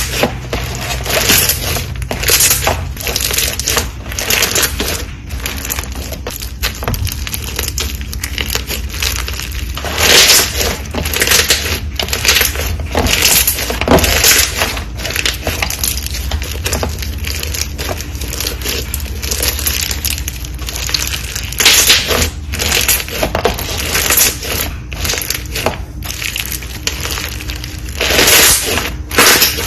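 Slime being squished and worked, giving a continuous crunchy crackling with irregular louder surges every second or few seconds.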